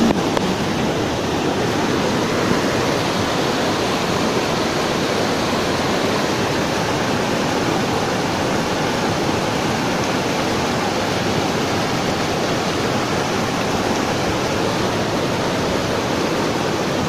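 Swollen, muddy stream in spate rushing over and around boulders: a steady, fairly loud rush of water.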